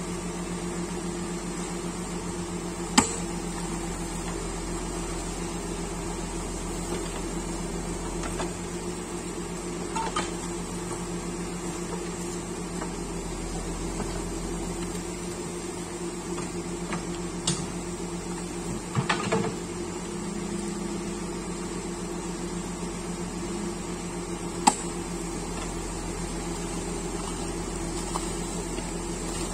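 Backhoe loader's diesel engine running steadily, with a few sharp knocks from the working machine, the loudest about three seconds in and again near the end.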